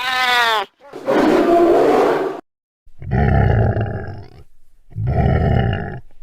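Camel calling: four loud, separate bellows and groans. The first is short and pitched and falls in pitch, the second is a long rough roar, and the last two are low rumbling grunts.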